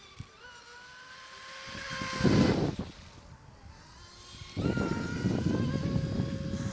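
High-pitched whine of a racing RC mono boat's brushless electric motor (Tenshock EVO 1535, 3350 kV) running fast. A loud rushing surge comes about two seconds in, and the noise comes back and holds from about halfway on.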